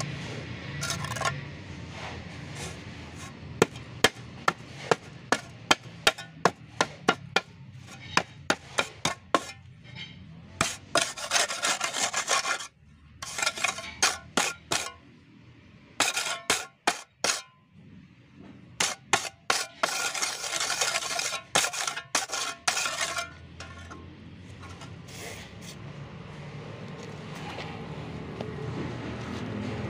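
Steel trowel working dry gravel-concrete mix in a steel block mould: a run of sharp metallic taps about twice a second, then spells of rough scraping as the mix is pressed and levelled off, with a few more taps in between.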